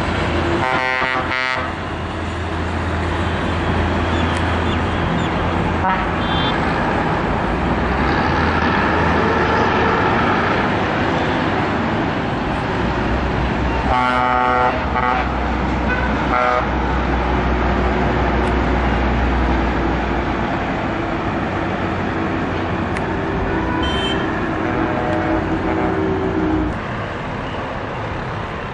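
Coach bus horns sounding over a steady low drone of bus engines and traffic: one horn blast about a second in, another about halfway through, and a shorter toot just after it. The engine drone eases near the end.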